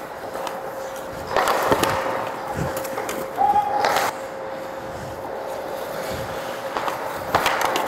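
Ice hockey skates scraping and carving on the ice, with a few sharp knocks about a second and a half in, near four seconds and near the end. A steady hum runs underneath.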